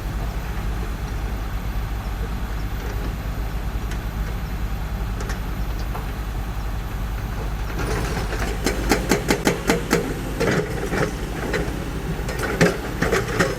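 Heavy construction machine's diesel engine running steadily with a deep drone. About halfway through, a run of sharp knocks begins, several a second, and goes on until near the end.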